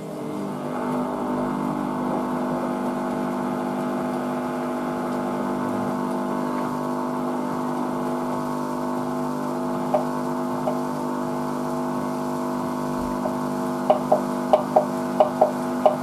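Hoover Vision Dynamic front-loading washing machine spinning up for an intermediate spin: the motor's whine comes in at the start and holds steady as the drum spins. In the last two seconds there is a run of short sharp knocks, about three a second.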